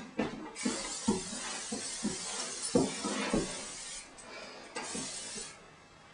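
Aerosol can of hairspray spraying in one continuous hiss of about five seconds, starting about half a second in.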